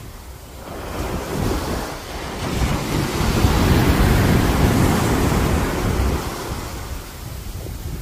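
Surf breaking on a sandy beach: a wave swells, crashes about three seconds in and rushes up the sand as foam, then fades away.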